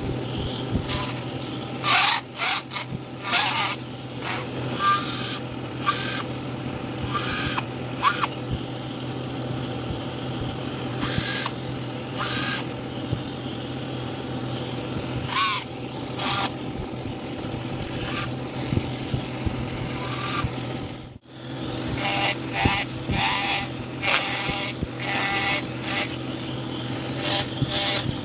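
Hand carving tools working wood: irregular scraping and tapping strokes over a steady low hum.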